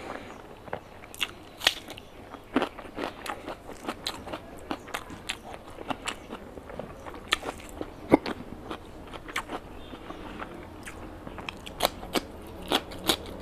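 Close-miked eating: a man chewing mouthfuls of curry and rice eaten by hand, with irregular sharp mouth clicks and smacks all through.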